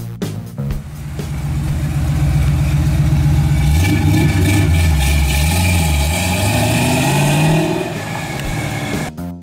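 The 350 cubic-inch V8 of a 1967 Chevrolet Camaro RS/SS resto-mod runs as the car pulls away. Its note holds steady at first, then climbs about four seconds in, dips and climbs again, and eases off as the car moves away.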